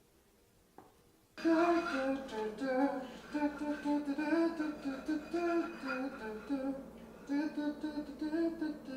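A voice humming a tune that moves from note to note, starting suddenly about a second and a half in after one faint tick.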